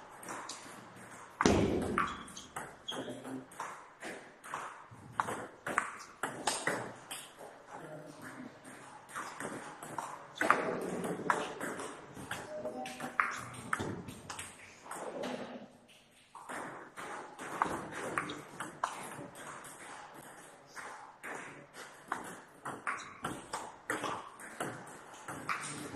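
Table tennis rally: a celluloid ball clicks off the bats and bounces on the table in quick, uneven succession, point after point, with short pauses between rallies. One bat is a penholder faced with long-pips rubber.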